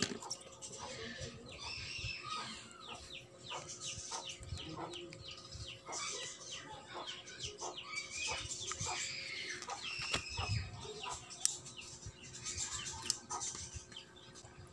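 Chickens clucking and chirping in a quick, busy run of short calls, with a few sharp knocks of parts being handled.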